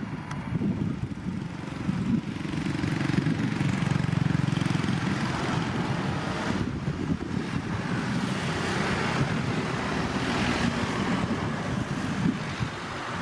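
Boeing 737 MAX 8's CFM LEAP-1B turbofans at takeoff thrust as the airliner rolls down the runway and lifts off near the end: a steady jet rumble with a hiss that grows stronger in the second half.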